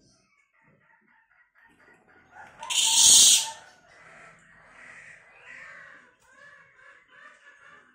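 Cililin songbird calling: faint chattering notes, a loud harsh burst of about a second near the middle, then quieter repeated chattering phrases.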